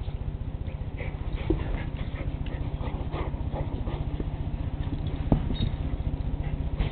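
Two pit bulls, a grown dog and a puppy, playing with a sock: brief dog noises and scuffling, with one sharp click a little past five seconds in, over a steady low hum.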